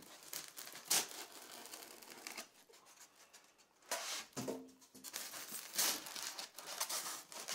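Cellophane and plastic packaging crinkling and rustling while it is handled, with irregular crackles and scrapes. The sharpest crackles come at about one second and about four seconds in.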